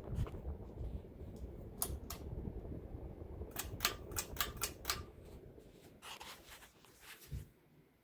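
Hampton Bay Cameron II Plus ceiling fan running, with a low rumble that fades toward the end and a scatter of sharp clicks, including a quick run of about six in the middle.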